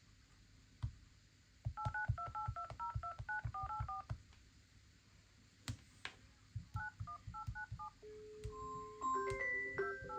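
Phone keypad touch-tone beeps: a quick run of dual-tone key beeps, each with a soft tap, then a short pause and a few more as a number is entered. About eight seconds in, a phone ringtone starts: a held note, then a melody of bell-like notes growing louder.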